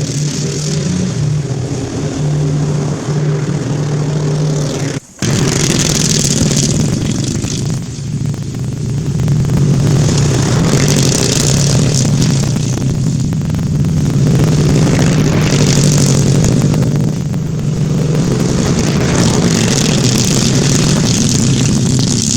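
Husqvarna zero-turn mower's V-twin engine running loud on an open custom header exhaust with no muffler. The sound cuts out briefly about five seconds in; after that the engine runs louder, swelling and easing as it is revved or driven.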